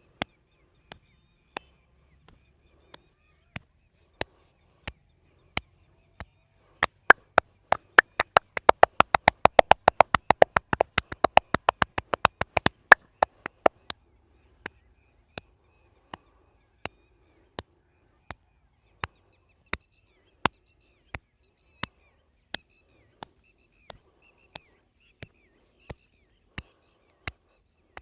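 Sharp hand slaps of a percussive massage striking the body, about one every 0.7 seconds. From about seven seconds in there is a fast, louder flurry of about six strikes a second, then the slow single slaps return from about thirteen seconds in.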